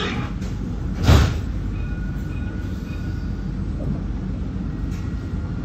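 Inside a Dubai tram standing at a station: the steady low rumble of the tram, with a single loud thump about a second in and faint thin high tones after it.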